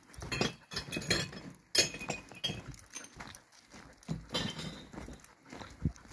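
Footsteps crunching on a gravel path, an irregular series of short crunches and clicks with a few light clinks, the loudest a little under two seconds in.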